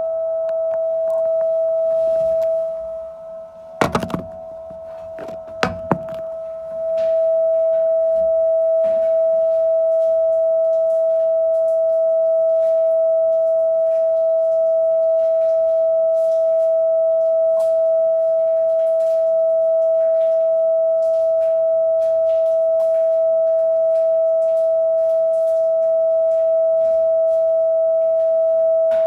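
A steady, high-pitched electrical tone: the abnormal noise reported in a building's common area. It drops off about three seconds in, two sharp knocks come at around four and six seconds, and the tone comes back at full strength by about seven seconds and holds.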